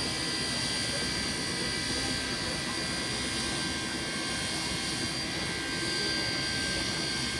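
NSW 35 class 4-6-0 steam locomotive 3526 standing in steam on a slowly turning turntable: a steady hiss with several steady high-pitched tones running through it.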